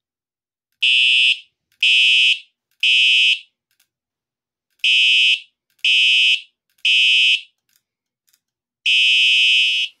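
Simplex TrueAlert fire alarm horn sounding its synthesized horn tone in the temporal-three evacuation pattern: three short blasts about a second apart, a pause, three more, and a fourth starting near the end.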